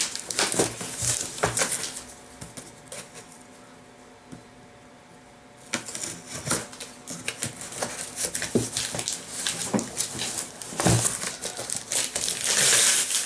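A cardboard shipping box being opened by hand: scattered scrapes, clicks and crinkles as a thin metal tool and fingers work at its tape and plastic pouch, with a quieter stretch of a few seconds in the first half and louder crinkling of plastic being peeled near the end.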